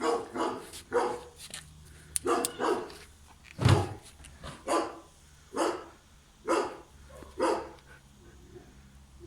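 A dog barking repeatedly, single barks roughly once a second, with one louder bark a little under four seconds in.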